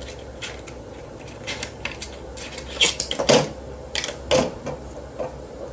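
A plastic fidget spinner and its packaging being handled: irregular light clicks and clacks, the loudest in a quick cluster about three seconds in and again a little after four seconds.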